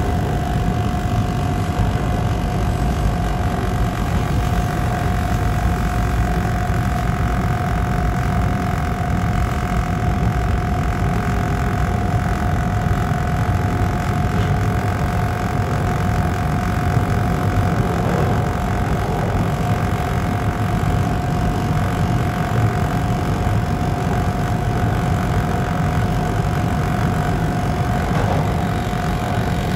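TTC Bombardier T1 subway train running through a tunnel: a steady low rumble of wheels on rail with a constant whine held at one pitch throughout.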